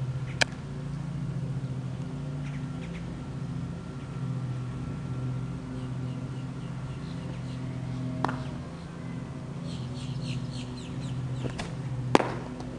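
A pitched baseball popping into a glove: sharp single smacks, three in all, the loudest near the end. Under them runs a steady low background drone.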